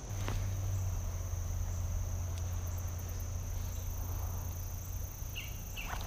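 Steady high-pitched chorus of insects such as crickets, with a low steady rumble underneath that sets in at the start and eases off near the end.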